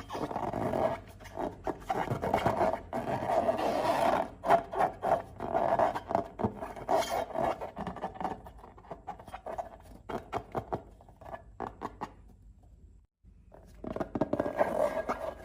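Hands working slime and rubber balloons: irregular rubbing, squeezing and scraping noises with many small clicks and crackles, stopping for about a second near the end before starting again.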